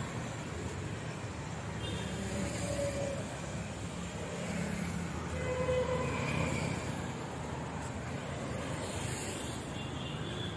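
Street traffic on a busy city road: a steady rumble of passing cars and motorcycles.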